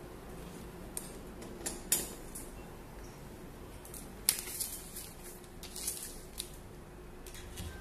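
A thin plastic smart-film sheet being flexed and handled, giving a series of sharp crackles and rustles, loudest about two seconds in and again a little after four seconds.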